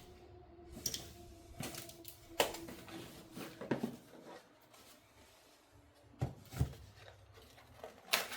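Packaging and kit parts being handled during unboxing: irregular clicks, knocks and rustles, a few sharper knocks about two and a half seconds in and again past six seconds.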